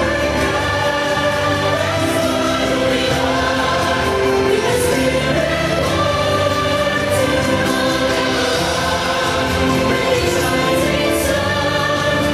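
Music with a choir singing long held notes over a steady instrumental backing.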